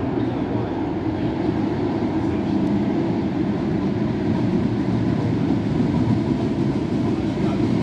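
Tyne and Wear Metrocar train pulling into an underground station platform: a steady low rumble of wheels on rail that grows a little louder about halfway through as the train draws in.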